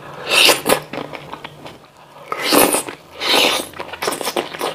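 Close-miked eating of green grapes coated in spicy chili sauce: wet bites and chewing in about four noisy bursts, with small mouth clicks between them.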